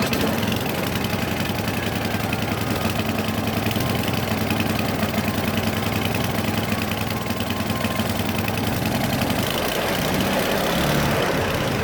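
John Deere snowblower's small gasoline engine running steadily after a cold start at about 2 degrees, brought to life by starting fluid sprayed into the carburetor. Its note shifts slightly about ten seconds in.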